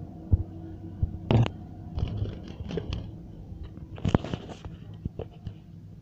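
Budgerigars in a wire cage: scattered sharp clicks and knocks mixed with short, soft chirps, over a low steady hum.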